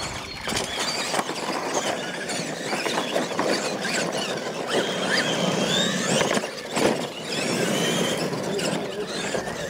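Electric radio-controlled monster trucks racing on dirt: a high-pitched motor and gear whine that keeps rising and falling in pitch as the throttle works, over tyre and dirt noise, with a couple of sharp thumps about two-thirds of the way through.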